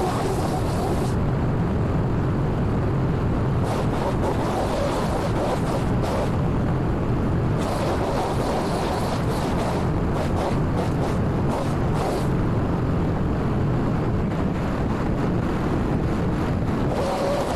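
Gas pole saw's two-stroke engine running steadily at high speed, with a steadier whine coming in near the end.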